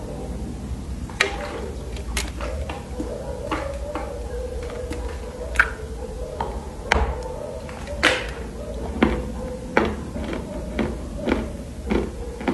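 Chunks of dry loess clay being bitten and chewed close to the microphone: sharp, crisp crunches at irregular intervals over a steady low hum.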